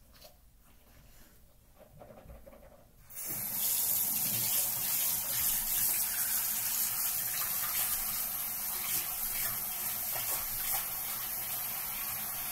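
Faint toothbrush scrubbing, then about three seconds in a bathroom sink tap is turned on and water runs steadily into the basin, for rinsing after brushing teeth.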